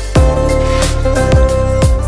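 Background music: held instrumental notes over a steady bass, with a drum beat striking about every half second.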